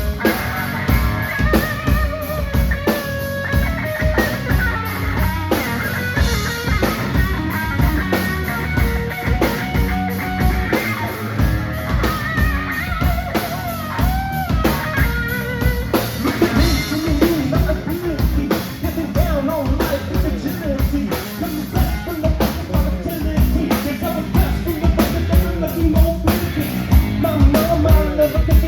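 Live rock band playing: a drum kit keeps a steady beat under guitar, with a voice singing over it in the second half.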